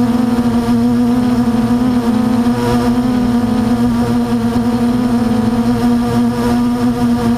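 Blade 350 QX quadcopter's brushless motors and propellers in flight, heard from its onboard camera: a steady electric hum that holds one pitch, with a noisy rush behind it.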